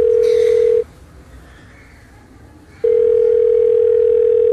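Telephone ringback tone heard through the phone: a steady low beep about two seconds long, a two-second gap, then the beep again about three seconds in. This is the sound of a call ringing at the far end, waiting to be answered.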